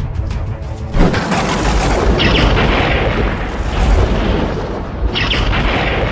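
Edited-in boom and blast sound effects: a sudden loud blast about a second in, followed by continuing loud, dense noise with a heavy low end.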